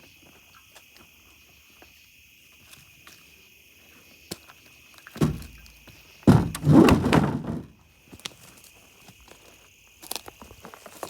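Steady high insect trilling, broken by a heavy thump about five seconds in and then a second or so of loud, rough knocking and scraping.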